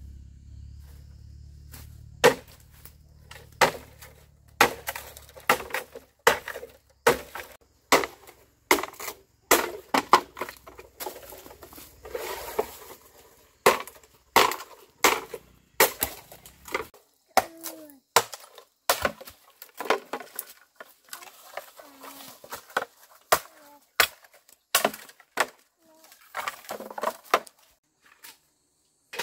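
Machete chopping a dry bamboo pole for firewood: a long run of sharp, irregular blows, roughly one a second, starting about two seconds in.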